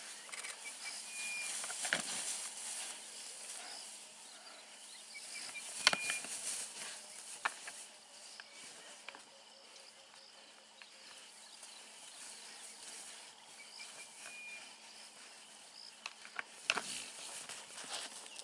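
Insects chirring steadily in the bush, broken by a few sharp knocks from two bushbuck rams fighting with locked horns; the loudest knock comes about six seconds in and another near the end.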